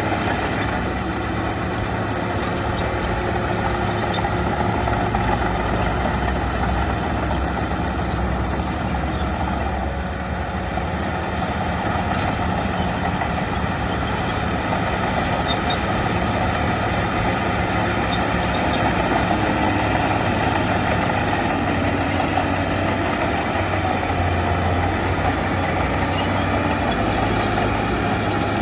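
Diesel engine of a Shantui DH17 bulldozer running steadily, with a slight dip in loudness about a third of the way in.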